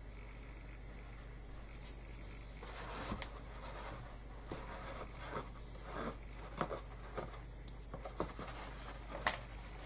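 Fingers pressing and rubbing ribbon trim onto a felt hat brim: soft scratchy rustling with scattered small clicks and taps, starting about a third of the way in, over a steady low hum.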